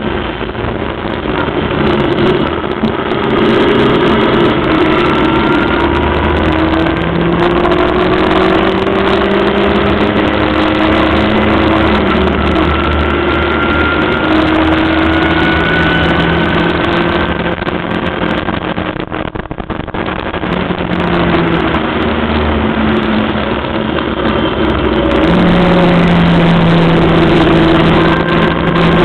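Racing Locost's 1300cc engine at full racing pace, climbing in pitch through the gears. It eases off briefly a few times for the corners, about twelve and twenty seconds in, then runs loudest near the end.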